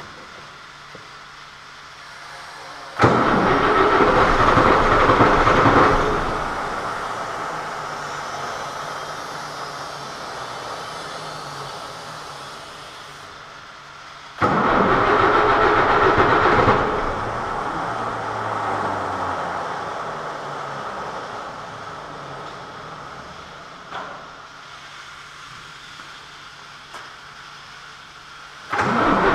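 Rebuilt MAN D2866LF six-cylinder diesel being cranked on its starter for its first start after the overhaul. There are two loud cranking bursts of about three seconds each, each fading away slowly afterwards, and a third attempt begins near the end. The engine has not yet caught.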